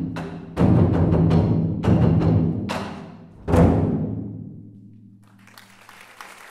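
Japanese taiko barrel drums (nagado-daiko) struck hard in unison: a few heavy strokes about a second apart, the last and loudest about three and a half seconds in, each booming and ringing out before fading away. Applause starts about five seconds in.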